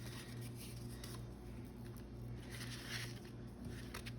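Faint rustling and light clicks of paper and card being handled, with a short louder rustle near the end, over a steady low hum.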